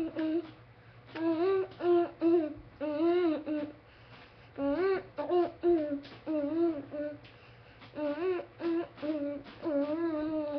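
A single voice humming a wordless tune in short phrases, the notes gliding up and down with brief pauses between them.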